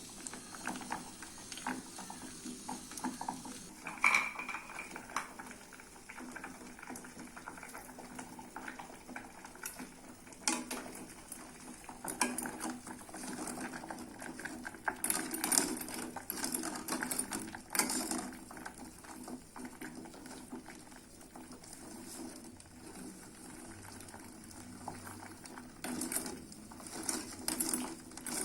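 Metal utensils clinking, knocking and scraping against cookware, irregular handling and stirring noises, with one bright ringing clink about four seconds in.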